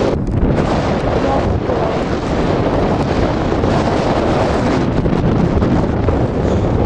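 Wind rushing over the microphone of a camera carried in paragliding flight: a loud, steady buffeting rush of noise.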